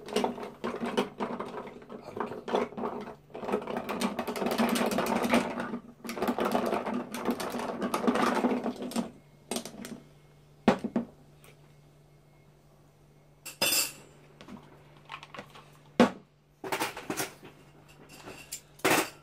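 Long bar spoon stirring ice in a tall glass of gin and tonic: a continuous clinking and rattling of ice cubes against the glass for about nine seconds. After that come a few single clinks and knocks.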